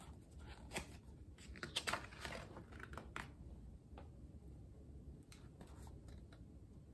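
A page of a hardcover picture book being turned by hand: a short run of paper rustling and crisp flicks in the first few seconds, then a few faint handling ticks.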